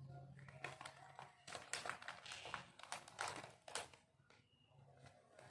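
Crinkling of food wrapping being handled, a run of sharp crackles loudest between about one and a half and four seconds in.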